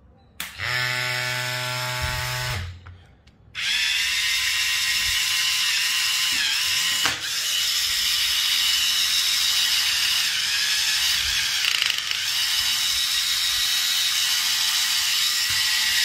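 The small electric motor of a 6 W mini washing machine switched on and spinning its impeller fast, a steady high whine. Before it settles, a brief lower buzz lasts about two seconds, then there is a short pause. The whine wavers once with a click about seven seconds in.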